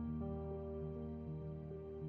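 Soft, slow background music: held notes that change every half second or so over a steady low drone.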